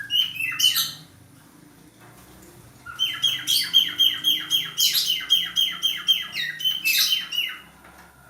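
Male budgerigar in breeding condition singing: rapid runs of repeated, falling chirps at about five a second, a short run at the start, a pause of about two seconds, then a longer run until near the end.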